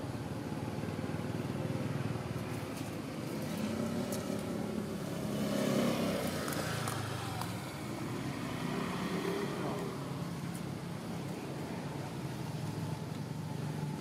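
Steady rumble of a motor vehicle, growing louder to a peak about six seconds in and then easing off, as in a pass-by.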